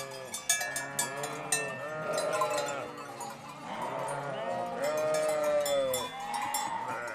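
A flock of mountain sheep bleating, many voices overlapping, with one long bleat about five seconds in. Bells on the flock ring and clink through it.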